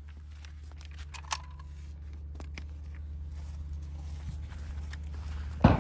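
Low steady hum with scattered small clicks and handling noises, then a loud, sharp bang near the end followed by a rush of noise.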